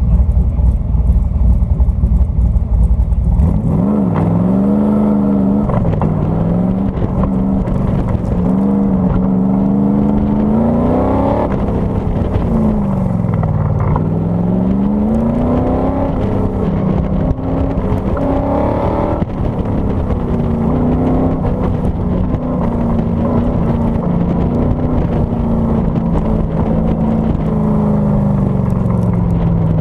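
A Factory Five Racing Cobra replica's V8 engine, heard from the open cockpit. It runs steadily at low revs for the first few seconds. Then, about three and a half seconds in, it launches and keeps revving up and down as the car accelerates and slows through an autocross course.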